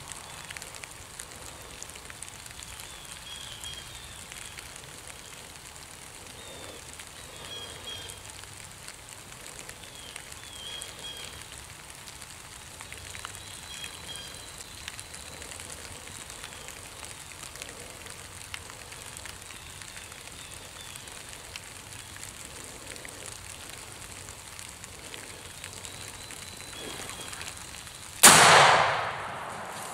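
A faint steady hiss, then about 28 seconds in a single loud shotgun blast that dies away over about a second: the shot that kills a spring gobbler turkey.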